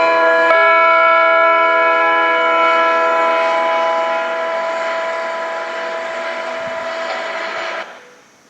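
Bell-type electronic chime over the town's outdoor public-address loudspeakers, the morning time signal: a last chord of bell tones struck about half a second in rings on and slowly fades, then cuts off suddenly near the end.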